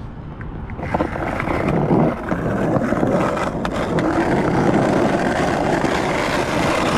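Steady rolling rumble of a Onewheel electric board's tyre on pavement as it is ridden, with a few light knocks from bumps along the way.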